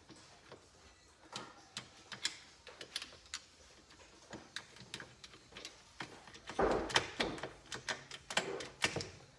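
Hand tools and loose engine parts clicking and knocking against a Kawasaki KZ400 crankcase and a steel workbench during teardown. The sharp clicks are scattered at first, then come louder and more often from about six and a half seconds in.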